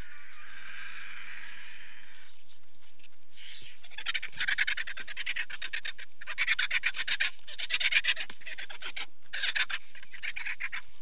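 Griffon vultures squabbling at a carcass: a hiss for the first two seconds, then repeated bursts of fast rattling calls from about four seconds in.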